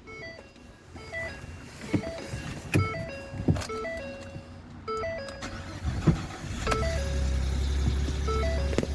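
Ford F-150 engine cranking and starting about six seconds in, then idling with a steady low rumble; this truck has an exhaust leak. Before the start, a repeating electronic tune of stepped beeps and several sharp clicks.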